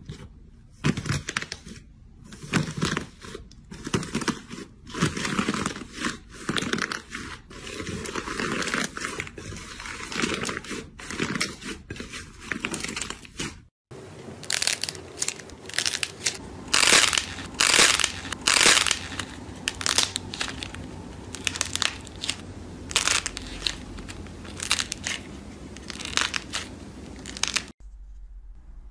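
Dried, crispy crust of an iceberg slime cracking and crinkling under pressing fingers, a quick run of sharp crackles and crunches. After a short break about 14 seconds in, similar crackling and crunching goes on, loudest a few seconds later.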